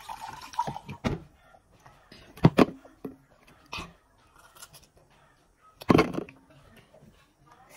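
A few short, sharp knocks and rustles close to the microphone, the loudest about two and a half and six seconds in, with biting and chewing of a piece of yellow food.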